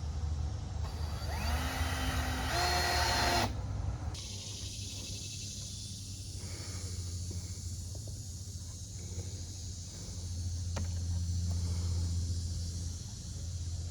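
Power drill spinning up and running for about two seconds, driving a screw into framing lumber, then stopping sharply. A steady low hum runs underneath.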